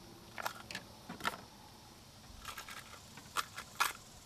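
A handful of short, light clicks and rattles, irregularly spaced, from small fishing tackle being handled while the rig is changed.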